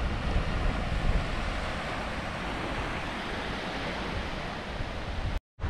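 Wind buffeting the microphone with a steady hiss of small waves washing onto the sand. The sound cuts out completely for a moment near the end.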